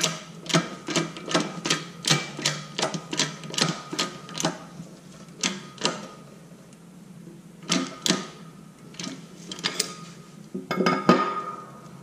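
Hydraulic shop press being pumped to force a polyurethane bushing into an alloy control arm: a quick, even run of sharp clicks, about three a second, for the first four seconds or so. A few single clicks follow, then a short cluster of clicks near the end.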